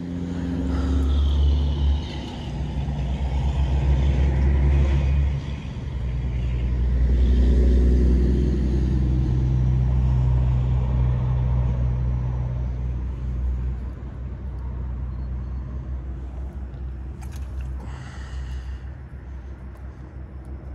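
Low rumble of a motor vehicle engine, swelling and fading in a few long waves, loudest about eight seconds in, then easing off.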